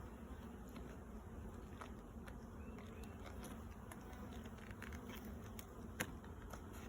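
Honeybees buzzing steadily around an opened hive, with a few faint clicks and one sharper click about six seconds in.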